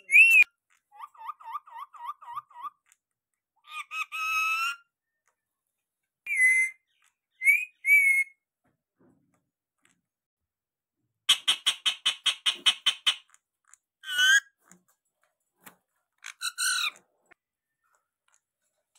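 Rose-ringed parakeet calling in separate bursts of squawks and shrill calls. About a second in there is a quick run of chattering notes, and about halfway through a longer, faster run of sharp screeches.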